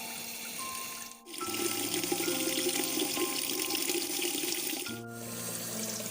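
Water running and splashing steadily, louder and fuller from about a second and a half in until about five seconds, over soft background music of long held notes.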